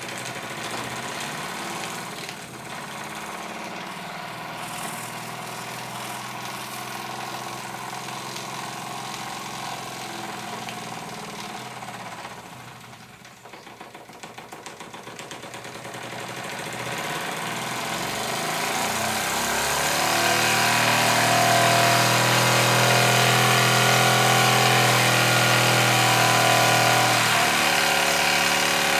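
Wilesco D20 model steam engine running steadily under live steam. It dips in level about halfway through, then grows louder and fuller and stays at its loudest through most of the second half.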